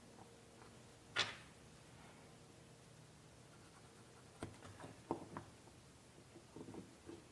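Light handling sounds of small pen-making parts on a workbench: a short scrape about a second in, then a few soft clicks and taps as a brass pen-kit tube and a wooden pen blank are picked up and set against each other.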